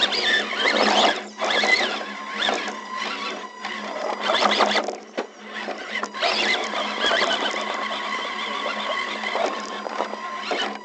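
A scale RC rock crawler's electric motor and gear drive whining as it climbs over wooden planks. The pitch rises and falls with the throttle, and it drops out briefly a few times.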